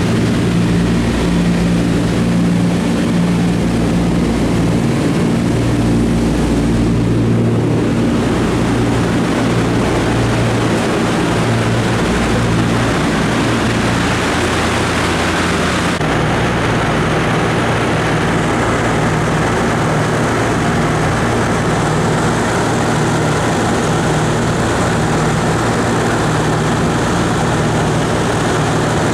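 The twin Pratt & Whitney R-1830 radial engines and propellers of a Douglas C-47 Skytrain heard from inside the cabin in flight: a loud, steady drone with a low engine hum under a rushing hiss. The engine tone shifts slightly about halfway through.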